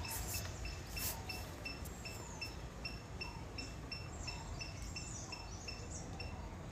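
Outdoor ambience: a high, even chirping that repeats about four times a second, typical of an insect or bird calling, with a few short bird chirps over it. Two light knocks come in the first second or so.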